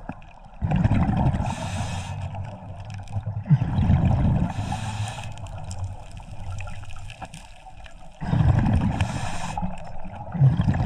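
Scuba diver breathing through a regulator underwater: surges of exhaled bubbles rumbling and gurgling past the housing, with hissing inhales between, a breath every few seconds.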